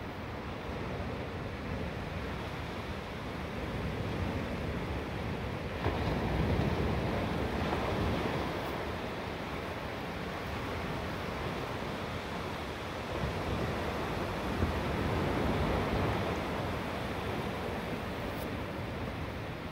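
Steady rushing noise with no pitch or rhythm, swelling louder twice and easing back.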